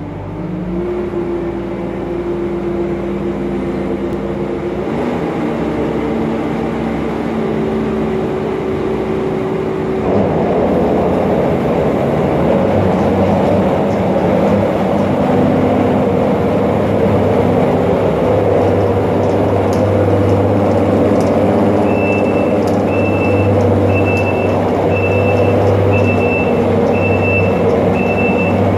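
Diesel engine of the machine driving a side-shooter bedding spreader, revving up at the start and stepping up again partway through. About ten seconds in, a loud steady rushing joins it as the spreader blows sawdust. From about two-thirds of the way through, a reversing alarm beeps about once a second.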